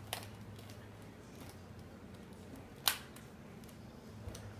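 Rubik's cube being turned by hand: a faint click near the start and one sharp click about three seconds in, over a low steady hum.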